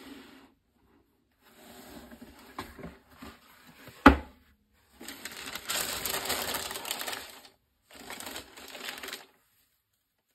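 Cardboard shoebox being handled and opened, with one sharp knock about four seconds in. Tissue paper then crinkles loudly as it is folded back from the sneaker, followed by a shorter rustle near the end.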